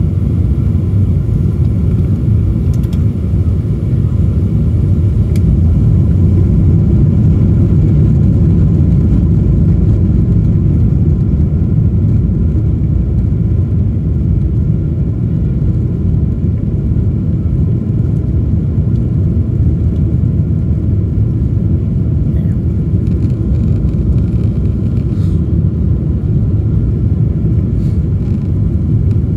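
Steady, loud rumble of a Boeing 777-300ER's GE90 engines and airflow heard inside the cabin, with the engines at high thrust as the airliner climbs away in a go-around.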